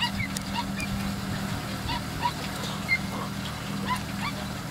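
Steyr Kompakt 4065 tractor engine running steadily as it pulls a rotary hay rake through cut grass. Many short, irregular high chirps or squeaks sound over the engine.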